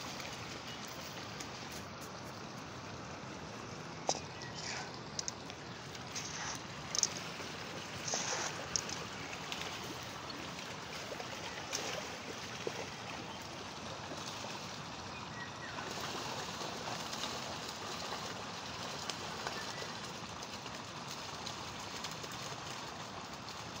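Steady rush of a shallow stream's running water, with a few sharp clicks and knocks scattered through the first half.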